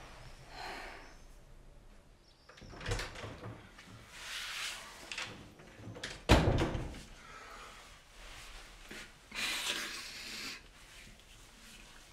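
Door handling in a small room: latch clicks about three seconds in and a sharp thump a little after six seconds, with rustling between.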